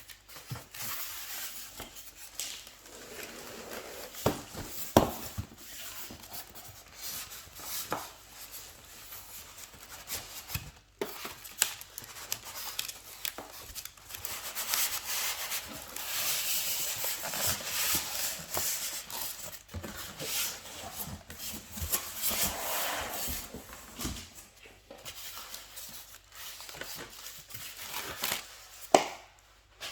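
Plastic packaging rustling and crinkling as an appliance's accessories are handled and unwrapped, with occasional sharp knocks of items being set down; the loudest knocks come about five seconds in and near the end.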